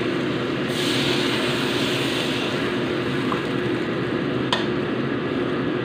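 Water poured into a hot wok of frying chilies and tomato hisses and sizzles for about two seconds, starting about a second in, then the sauce simmers as a metal spatula stirs it, with one sharp clink of the spatula on the wok near the end. A steady low hum runs underneath.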